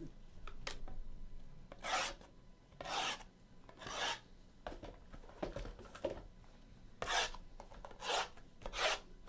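Trading cards sliding and rubbing against one another as they are handled: a series of short swishes about a second apart, with a pause in the middle.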